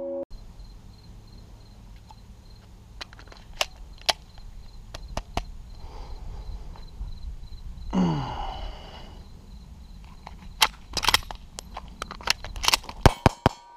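Sharp metallic clicks and clacks of a semi-automatic pistol being handled while a malfunction is cleared, with a scattered run of clicks early on and a quicker cluster near the end, over a low wind rumble on the microphone. A short falling pitched call sounds about eight seconds in.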